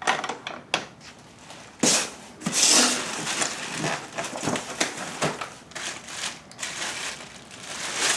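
Packing materials being handled: plastic wrap crinkling and foam packing rustling, with scattered knocks and clicks, as a part is pulled out of the foam molding.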